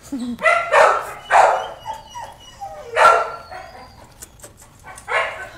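Puppy barking: three quick short barks in the first second and a half, then single barks about three seconds and five seconds in.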